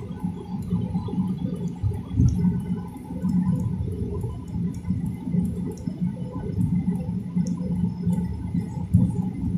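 Cabin noise of an airliner taxiing: a steady low rumble from the jet engines at taxi power and the wheels rolling over the taxiway, with a faint hum and a few small scattered clicks.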